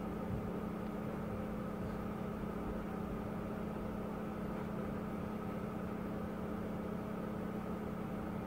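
Steady low mechanical hum, an even drone with overtones that does not change.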